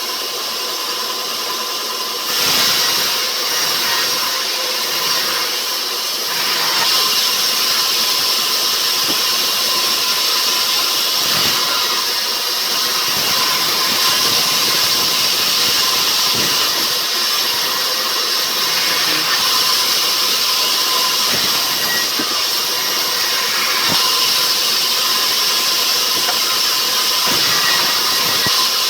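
Sawmill saw running steadily through rubber wood: a loud, even hiss with a held whine. It gets louder about two seconds in and stays level after that.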